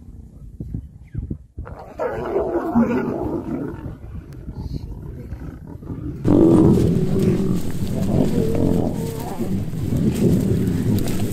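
A pride of lions growling and squabbling as they feed together on a kill; the sound jumps louder about six seconds in and stays dense and continuous.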